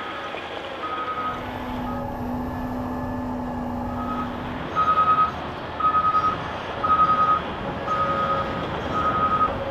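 Caterpillar 994K wheel loader's diesel engine running under load, with a reversing alarm beeping about once a second, faint at first and loud from about halfway through. A steady low hum sits under it for a few seconds early on.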